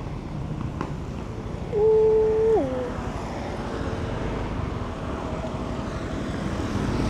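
Small scooter running with road and wind noise while riding, and a vehicle horn sounding once for most of a second about two seconds in, its pitch dropping as it ends.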